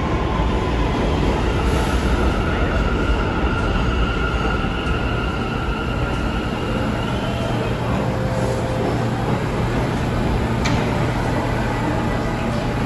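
New York City subway train slowing into a station and coming to a stop: a steady rumble with high whining tones, one falling in pitch at the start. A single sharp click comes near the end.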